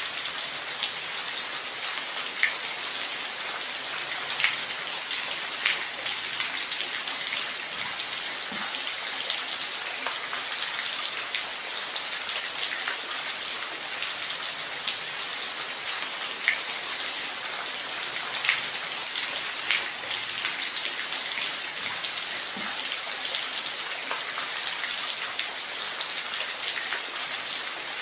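Steady rain, a constant hiss with single heavier drops ticking sharply on a surface every second or two.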